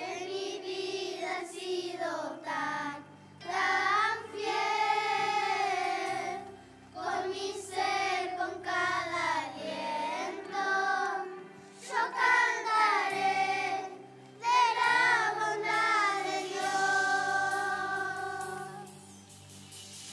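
Children's choir singing a Spanish worship song in phrases with short breaks, over instrumental accompaniment.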